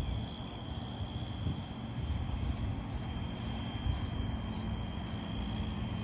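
Groomi deshedding brush scraping through a horse's shedding coat in quick regular strokes, about three a second, over a low rumble of wind on the microphone.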